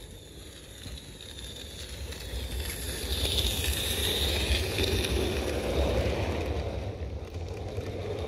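Small live-steam 16mm-scale garden railway locomotive running with its coaches, getting louder as it approaches and passes close by, with wind rumble on the microphone.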